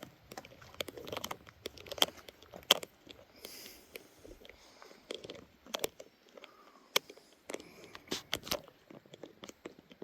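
Footsteps on a forest trail: irregular crunches and snaps of leaf litter and twigs underfoot.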